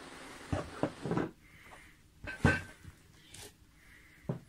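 Hard plastic eyepiece case being opened and handled: the screw-top lid comes off and the plastic parts knock and click several times, the loudest knock about two and a half seconds in. A steady hiss stops about half a second in.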